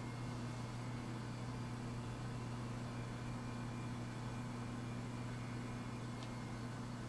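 Steady low hum over a faint hiss, with one faint tick about six seconds in.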